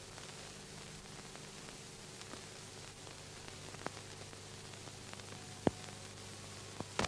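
Faint steady hiss with a low hum and scattered clicks and pops: the background noise of an old film soundtrack, with the loudest pop near the end.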